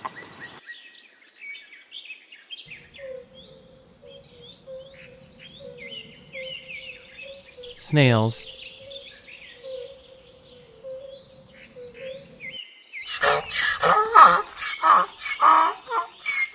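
Ducklings peeping in short, high chirps over a faint steady hum. About three seconds from the end, a much louder run of rapid chirping calls takes over.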